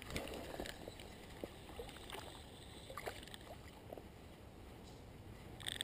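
Faint handling noise from a spinning rod and reel as a lure is worked and wound in: scattered light clicks and rustles, with a louder burst near the end.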